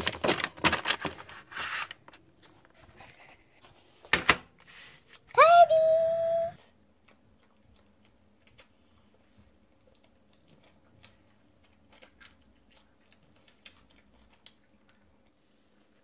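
Dishes clattering and knocking as they are pulled from a dish rack, then a single sharp click. A short tone rises and holds for about a second, and after that only faint scattered clicks remain.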